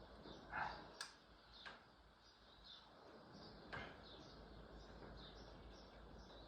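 Near silence: faint bird chirps in the background, with a few light clicks.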